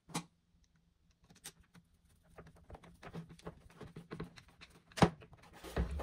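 Scattered light clicks and taps of hands working on the oscillating multitool's plastic housing with a screwdriver, thickening into a run of small ticks with one sharper click about five seconds in. The tool's motor is not running.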